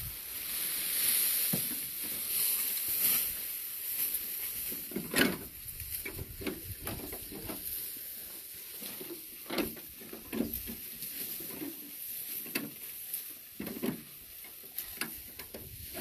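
Cattle pulling and chewing cut grass: a rustling hiss for the first few seconds, then irregular crackles and snaps of grass being torn and munched.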